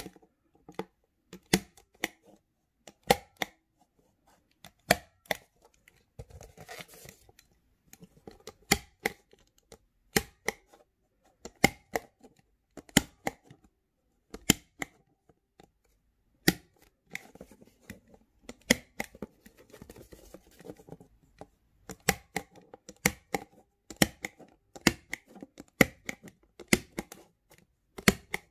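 Handheld stapler punching staples into corrugated cardboard: sharp clicks about one a second, often two close together as the stapler is pressed and let go. There are two short stretches of rustling as the cardboard is handled, one about six seconds in and one around twenty seconds.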